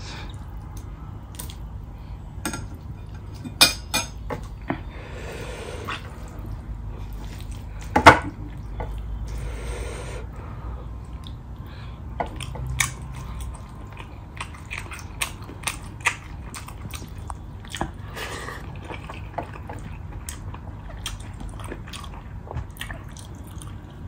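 Close-up eating by hand from a stainless-steel plate: chewing and mouth sounds, with scattered sharp clicks and taps of fingers and food against the plate. The loudest click comes about eight seconds in.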